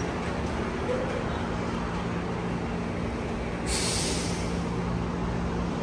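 Steady mechanical hum of a SkyTrain rapid-transit line at an elevated platform, with a sharp hiss lasting under a second about four seconds in.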